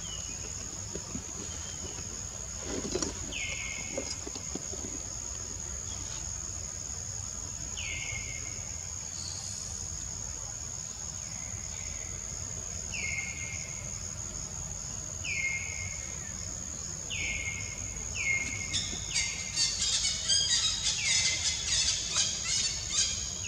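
A steady high-pitched insect drone, with a bird's short falling call repeated every few seconds. The calls come closer together later on, and rapid chirping joins in for the last few seconds.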